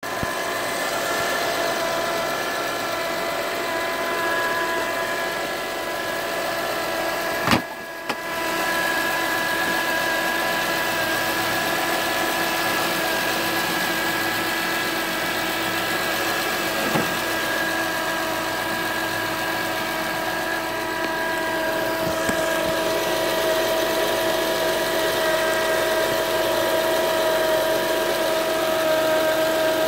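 2007 Acura TL Type S's 3.5-litre V6 running steadily with a high, steady whine over the engine sound. A sharp click about seven and a half seconds in, followed by a brief dip in the sound.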